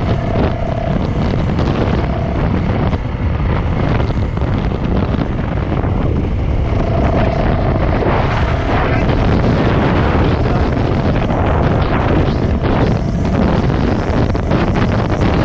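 450-class dirt bike's single-cylinder four-stroke engine running steadily while riding, with wind buffeting the helmet-mounted microphone.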